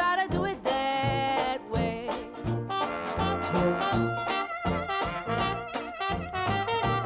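Background swing-jazz music with brass, trumpet and trombone, over a steady beat.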